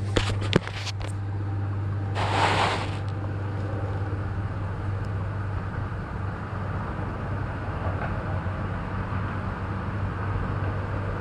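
Steady low hum from the aquaponics tank's water pump, heard with the camera underwater among the fish. A few knocks come right at the start, and a short rush of water or bubbles about two seconds in.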